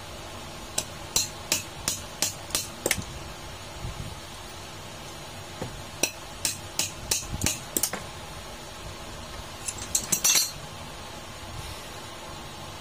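Sharp metal-on-metal taps as a new bearing is driven onto the shaft of a freezer condenser fan motor's rotor, with an adjustable wrench set over the bearing. There are two runs of about seven or eight taps, then a quick cluster about ten seconds in.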